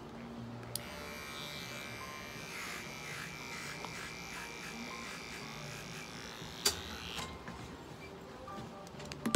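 Cordless electric pet clippers buzzing as they shave a patch of a cat's hind leg to expose a vein for a blood draw. The buzz starts abruptly about a second in and stops about seven seconds in. A sharp knock comes right at the end.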